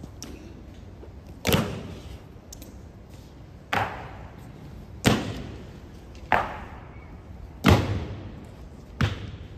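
Honor guard drill strikes: six sharp, unevenly spaced impacts, each followed by an echoing tail.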